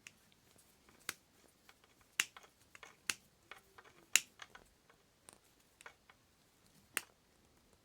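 Irregular sharp clicks and light taps from small hand work on a hot air gun: the tinned wires being fitted and clamped into its terminals. The loudest come about two, three, four and seven seconds in.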